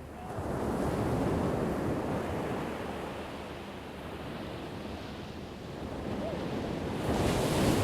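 Ocean waves breaking on a shore in two surges, one building about half a second in and fading, the next rising near the end, with some wind on the microphone.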